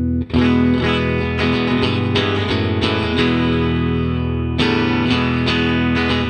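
1966 Teisco ET-460 electric guitar strummed in repeated chords that ring on between strokes, with a short gap just after the start and a change to a new chord about four and a half seconds in.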